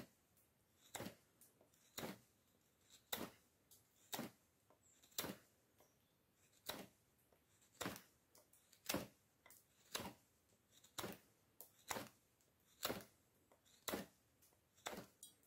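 Bark River Bushcrafter knife slicing shavings off a beech-wood file handle: sharp cuts through the wood, about one a second in a steady rhythm.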